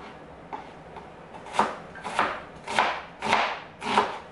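Chef's knife dicing an onion on a plastic cutting board, with five sharp knocks of the blade on the board about every half second, starting about one and a half seconds in. No towel is under the board to dull the knocks.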